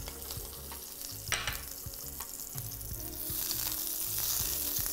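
A cube of butter sizzling as it melts in a hot nonstick (Teflon) frying pan, spread across the pan with a silicone pastry brush; the sizzle grows louder about three seconds in.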